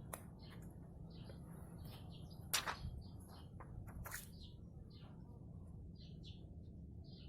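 Small birds chirping over and over in the background over a low steady hum, with a few sharp taps, the loudest about two and a half seconds in.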